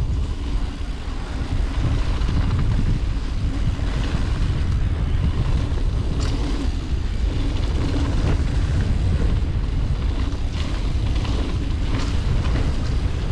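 Steady rumbling roar of wind over the camera microphone and tyres rolling on a dirt jump trail during a mountain bike descent, with a few sharp knocks from the bike over bumps and landings.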